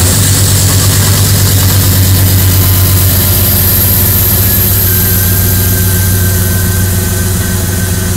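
A 2000 Dodge Dakota R/T's 5.9 L (360) V8 running steadily at idle just after being started, with a thin high whine over the engine note. This is the bad noise the owner says sounds just like a water pump, even though the pump was replaced not long ago.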